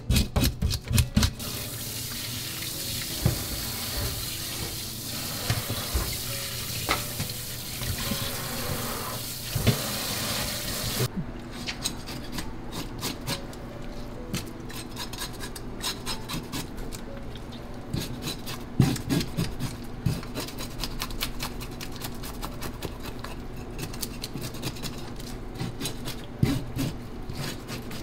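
A few quick scraping strokes on a fish in a steel sink, then a tap running in a steady hiss that stops suddenly about eleven seconds in. After that a knife scrapes the remaining scales off a largescale blackfish on a cutting board in rapid ticking strokes.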